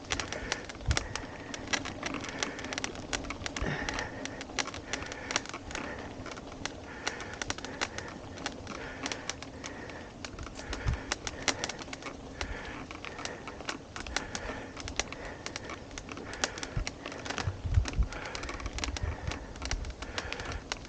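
Mountain bike rolling along a dirt trail: tyres crunching over dirt and small stones, with frequent sharp clicks and rattles from the bike over the bumps.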